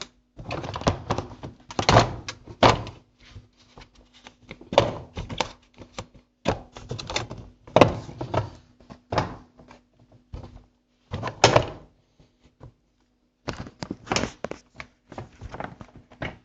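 Irregular knocks and clunks of a semi-automatic washing machine's parts being handled and fitted back together during reassembly, with a short pause about twelve seconds in. A faint steady hum runs underneath.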